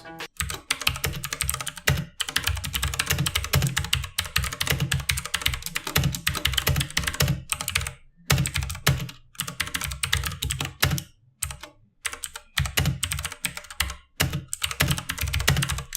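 Typing on a Redragon K551 Vara mechanical keyboard with Outemu blue clicky switches: fast, really audible key clicks in quick runs, broken by a few short pauses.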